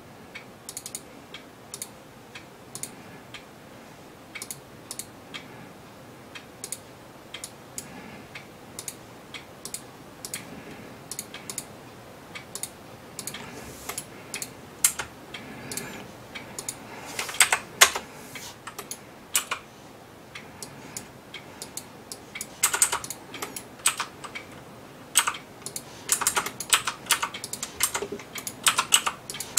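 Computer mouse and keyboard clicks, scattered singly at first and coming in quick runs around the middle and through the last third.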